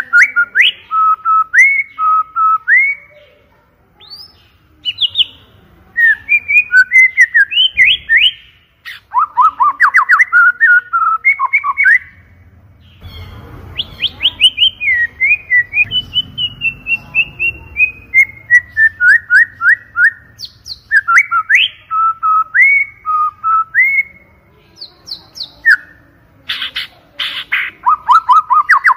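White-rumped shama (murai batu) singing loudly in long, rapid runs of clear whistled notes, swoops and trills, with a few short pauses.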